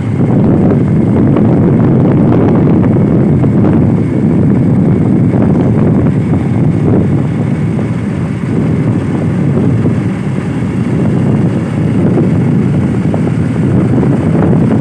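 Steady, loud low rumble of wind buffeting the microphone, with no distinct tones or separate events.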